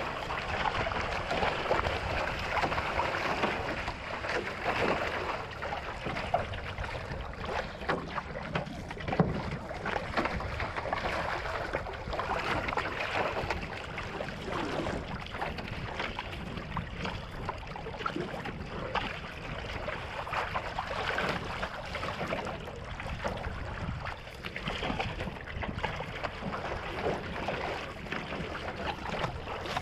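Water rushing and splashing along the hull of a one-person outrigger canoe being paddled at speed, with the splash of the single-blade paddle strokes.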